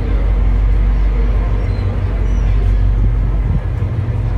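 Passenger ferry's engine running with a steady low drone, with faint voices under it.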